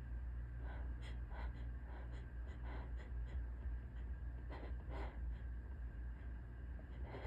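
A woman's short, hitching gasps and breaths during a sneeze buildup, coming in irregular clusters. The sneeze does not come.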